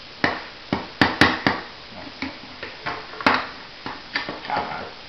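A small hammer giving about a dozen light, unevenly spaced taps to seat a pin in an airsoft rifle's body.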